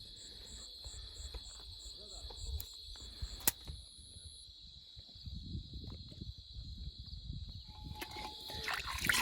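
Insects chirring steadily in a continuous high trill, with a faster pulsing chirp over it in the first half. There is a single sharp click about three and a half seconds in.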